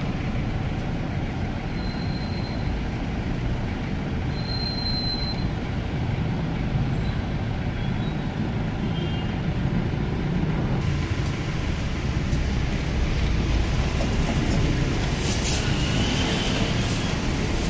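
Steady low rumble of outdoor street noise, with a few light clicks near the end.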